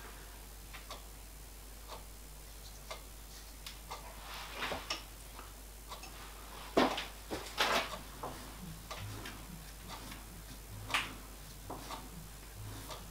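Scattered light metal clicks and taps as a dial test indicator is set against a bearing block clamped in a lathe fixture, with a few louder knocks in the middle, while the work is checked for square.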